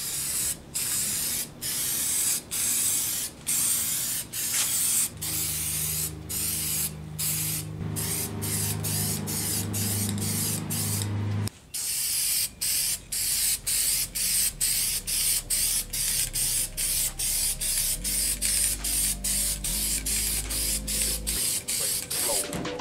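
Aerosol can of Rust-Oleum hammered-finish spray paint spraying in short hissing pulses with brief gaps between them, about one a second at first, then quicker, about two a second, after a short break near the middle.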